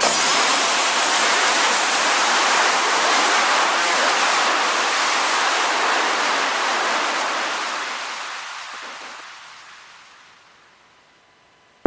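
A steady rushing hiss of noise that fades away over the last few seconds, like a white-noise wash used as a transition in electronic music.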